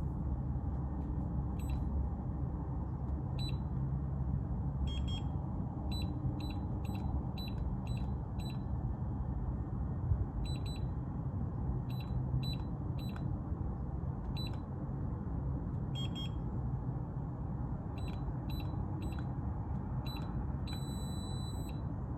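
Electronic keypad door lock beeping once for each key pressed as a code sequence is entered: about twenty short high beeps at irregular spacing, some in quick runs, then one longer beep near the end. A steady low hum runs underneath.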